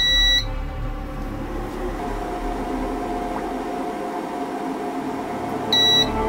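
Phrozen Sonic Mighty 4K resin 3D printer: a short touchscreen beep at the start, then the Z-axis motor humming steadily as the build plate lowers toward the resin vat, with a steady whine coming in about two seconds in. Two more short beeps come near the end.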